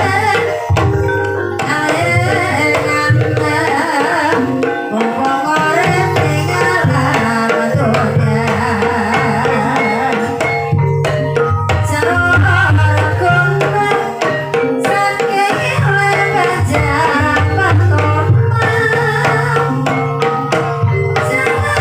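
Ebeg dance accompaniment: a gending played by a gamelan-style ensemble, with a hand drum beating steadily under interlocking pitched melody lines.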